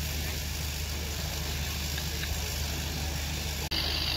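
Steady low mechanical drone, like an idling engine. About three and a half seconds in it changes abruptly to a brighter, hissier background.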